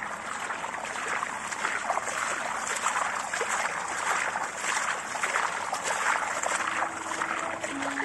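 Running water splashing steadily, an even rushing hiss.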